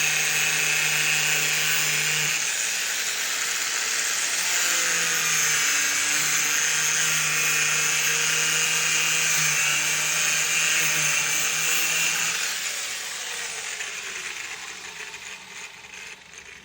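Handheld power tool cutting into a vending machine's plastic panel, running with a steady whine, then slowing and dying away over the last few seconds.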